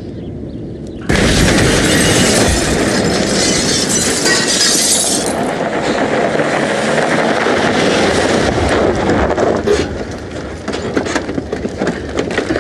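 A cottage exploding: a sudden loud blast about a second in carries on as a dense rumble for several seconds, then thins into scattered crackles and clatter near the end.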